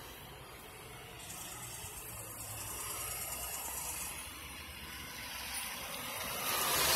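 Fire truck's engine and tyres as it approaches, a low rumble with hiss, getting louder toward the end.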